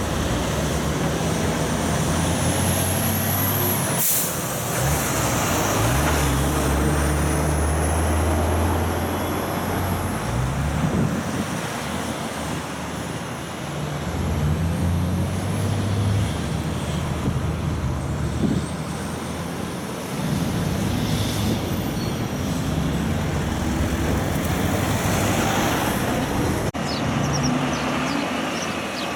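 Loaded logging trucks with trailers passing one after another, their diesel engines pulling hard and stepping up through the gears, with a short sharp air-brake hiss about four seconds in.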